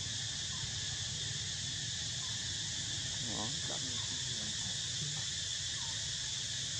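A steady, high insect chorus, with a short, faint call about three and a half seconds in.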